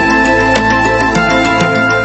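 Instrumental background music with held, sustained notes and a few new notes coming in.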